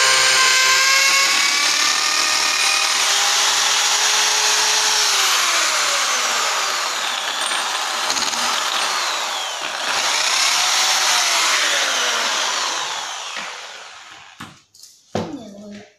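Electric drill boring into a masonry wall. The motor's pitch sags and picks up again a few times, then it winds down and stops near the end, followed by a few light clicks.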